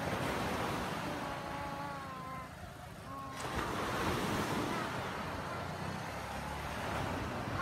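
Sea waves breaking and washing up a sandy beach, with wind rumbling on the microphone. A few faint wavering calls sound over the surf in the first three seconds, and the sound changes abruptly a little over three seconds in.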